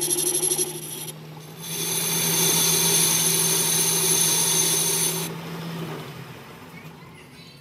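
Metal lathe boring out a steel sleeve: the cutting tool scrapes with a high-pitched ring over the lathe's steady hum. The cut pauses briefly about a second in and resumes. It stops about five seconds in, and the hum fades soon after.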